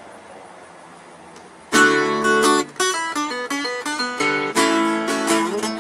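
Acoustic guitar playing plucked notes and chords, starting about a third of the way in after a faint hiss.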